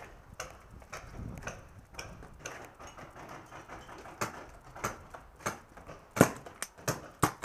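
Pump paintball marker firing: two loud sharp shots about a second apart near the end, with scattered lighter clicks and pops before them.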